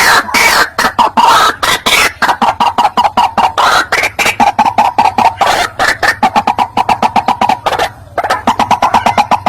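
White-breasted waterhen calling: a loud series of harsh repeated notes, slower and longer at first, then speeding up to about seven a second, with a short break near the end.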